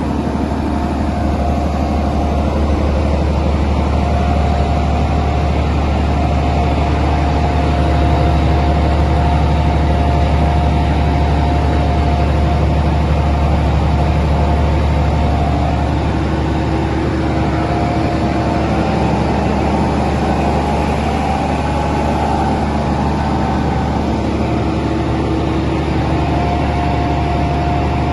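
Wirtgen W1200F cold planer's diesel engine running steadily with a deep, constant hum, and a higher whine that comes and goes several times.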